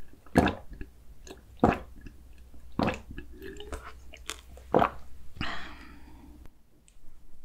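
Close-miked gulping of a drink straight from a glass pitcher: four loud swallows, a little over a second apart, then a short breathy sound just after the last one.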